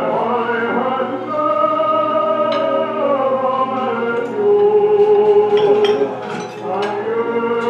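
Singing from a 1930s film musical's soundtrack, played back over a room's sound system: a sung melody with long held notes over musical accompaniment.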